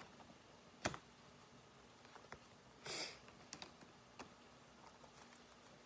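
A quiet room with a single sharp click a little under a second in, then a short sniff about three seconds in and a few faint ticks.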